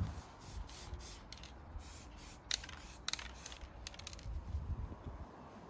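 Aerosol can of silver wheel paint spraying onto a motorcycle clutch cover in a series of short hisses, about seven or eight in the first three seconds or so, then stopping.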